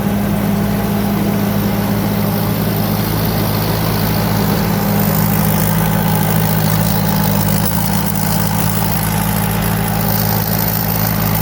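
Combine harvester's four-cylinder turbo diesel engine running steadily, its pitch dipping slightly about three seconds in.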